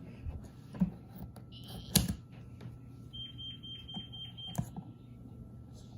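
Clicks and knocks of a toy's packaging being handled and cut open, the loudest knock about 2 s in. A steady high-pitched beep holds for about a second and a half in the middle.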